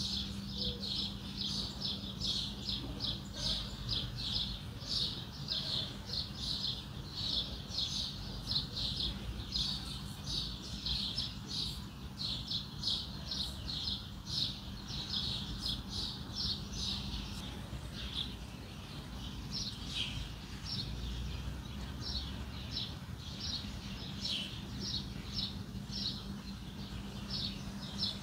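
Small birds chirping in quick, steady repetition, about three chirps a second, over a low steady hum and rumble.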